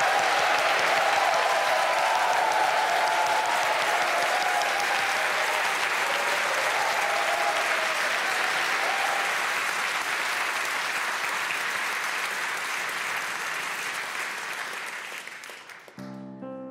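Studio audience applauding steadily, tapering off over the last few seconds and stopping suddenly. Right after, a Blüthner grand piano starts playing its first notes.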